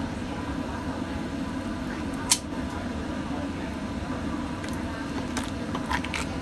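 Knife chopping on a cutting board: one sharp chop about two seconds in and a few lighter knocks near the end, over a steady hum.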